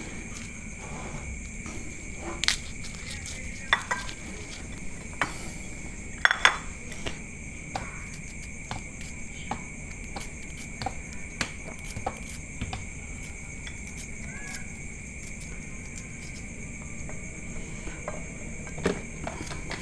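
Irregular clicks and taps of a small kitchen knife and shallots against a glass plate as shallots are peeled and sliced by hand. Behind it, night insects, crickets by their sound, keep up a steady high drone.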